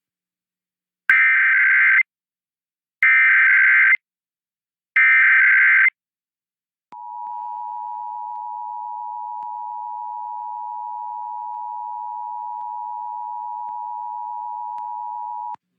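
Emergency Alert System test: three loud one-second bursts of SAME header data tones about a second apart, then the steady two-tone EAS attention signal held for about eight and a half seconds before cutting off suddenly.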